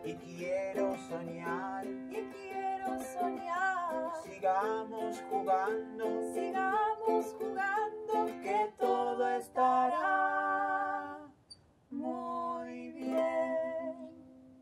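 Ukulele strummed as accompaniment to a singing voice carrying a sliding melody. Near the end the song closes on two long held notes, then the sound dies away.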